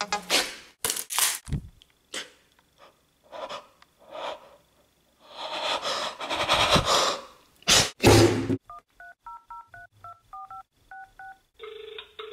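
Irregular scrapes and knocks of handling, then a telephone keypad dialling a number: about a dozen quick two-note touch-tone beeps. A steady tone starts near the end.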